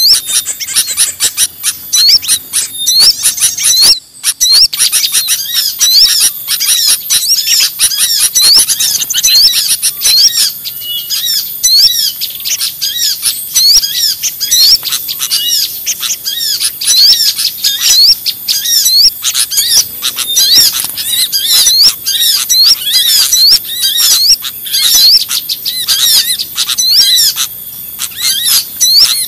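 A dense, noisy chorus of many small birds chirping and calling over one another without a pause, from a bird-lure recording used to draw in small birds. The calls are high and quick, with a brief drop-out about four seconds in.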